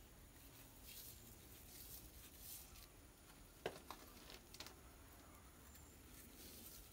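Faint, dry rustling of coconut coir fibres being rubbed and rolled between the palms into a twisted strand. A single sharp click about halfway through, and a couple of softer ones shortly after.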